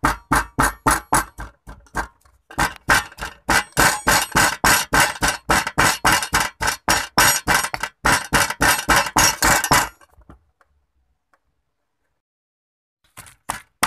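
Stone pestle pounding curry-paste ingredients in a granite mortar: steady sharp strikes about four to five a second, with a short break about two seconds in. The pounding stops about ten seconds in and starts again just before the end.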